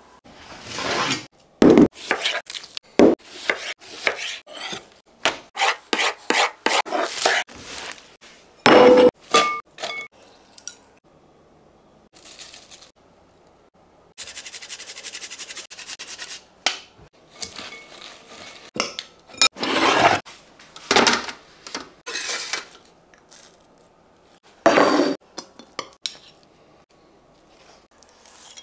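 Close-up kitchen handling sounds: a series of sharp clinks and knocks from dishes and utensils, with a short steady hiss about halfway through.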